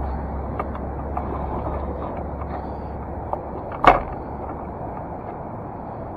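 Steady road and engine noise of a car being driven, heard from inside the car, with a low hum that fades after about two seconds. A single sharp thump about four seconds in is the loudest sound.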